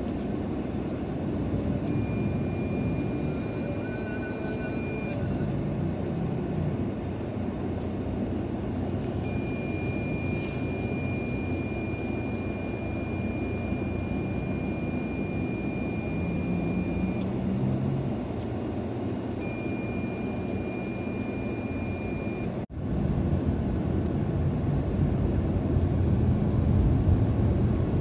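Steady low rumble of a car's engine and road noise heard from inside the cabin in slow city traffic, growing louder in the last few seconds as the car drives on. A faint, thin, high whine comes and goes in the first two-thirds.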